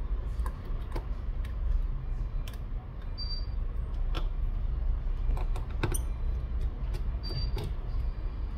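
Scattered light clicks and taps from handling an opened smartphone and small repair tools, over a steady low hum.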